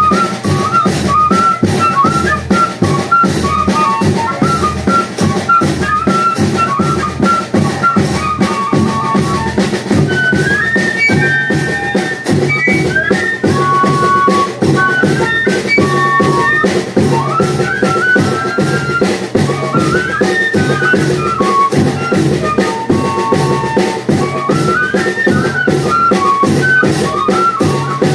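Banda de pífano playing: cane fifes carry a quick, ornamented melody over a steady, driving drum beat.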